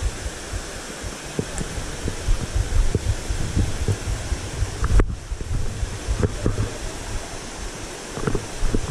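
Wind buffeting the camera's microphone: a low rumbling rush with scattered short knocks.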